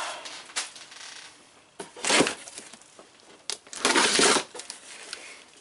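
Large cardboard shipping box being handled and opened: several short scraping and rustling noises of cardboard and packing tape.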